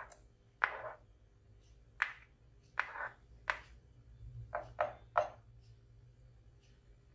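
Kitchen utensils knocking and scraping: minced garlic is scraped off a plastic cutting board into a metal saucepan, then a utensil stirs it in the pot and clinks against its side. About eight short, sharp taps and scrapes.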